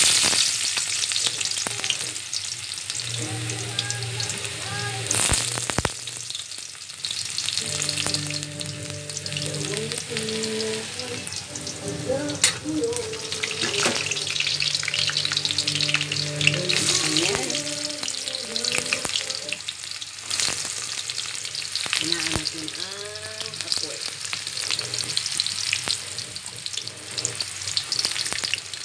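Chopped garlic sizzling in hot oil in an aluminium wok, with a few sharp clicks. A low steady hum comes and goes in the background.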